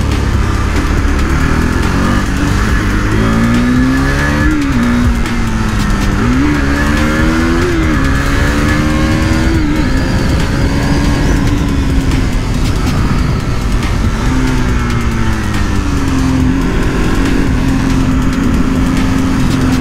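KTM RC 390's single-cylinder engine under way: the revs climb and drop back sharply twice in the first half as it shifts up, then hold steady at cruise, ease off and pick up again near the end.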